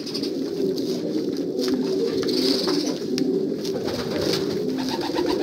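Many domestic pigeons cooing at once, a continuous overlapping chorus, with scattered clicks and rustling from a spoon stirring a basin of dry seed mix.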